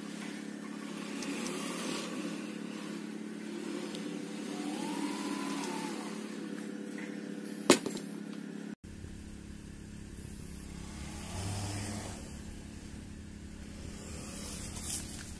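Steady machine hum from the tomato-harvesting robot, with a short motor whine that rises and falls about five seconds in and one sharp click a little later. After a cut about halfway through, a lower hum carries on.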